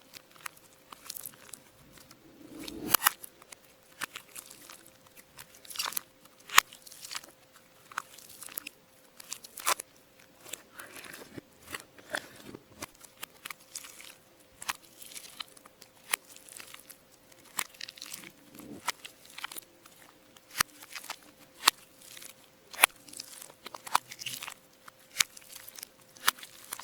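Hands squeezing, poking and stretching slime, making irregular sharp clicks, pops and crackles with soft squelches between them.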